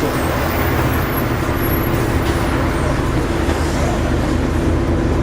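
Volvo Olympian double-decker bus engine running at a steady pitch while the bus is under way.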